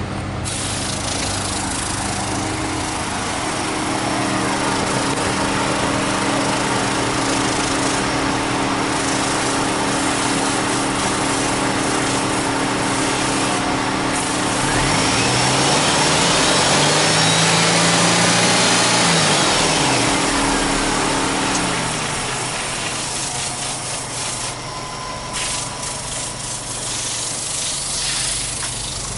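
Subaru Impreza WRX STI (GDB) turbocharged EJ20 flat-four engine idling, revved once about halfway through: the pitch climbs and falls back over several seconds before it settles to idle again.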